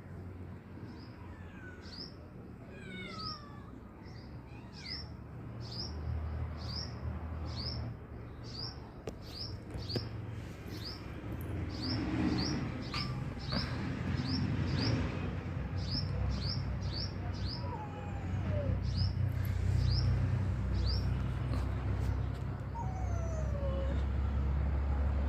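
A cat meowing a few times in drawn-out, falling calls, over a short high chirp that repeats about twice a second, with a steady low rumble underneath.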